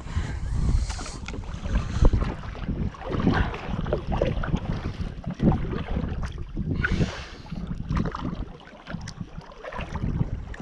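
Kayak paddling: the double-bladed paddle dipping and splashing in the water, with occasional knocks against the kayak, and wind rumbling on the microphone.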